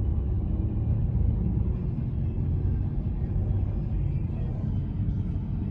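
Steady low rumble of a car driving, engine and road noise heard from inside the moving car.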